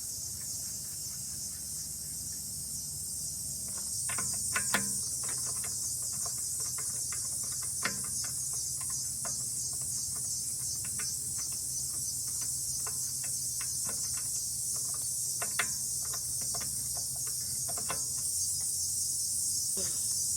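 Steady high-pitched chirring of crickets, with scattered small clicks and knocks from hand work on a pressure washer's pump parts, tightening them back together, from about four seconds in until near the end.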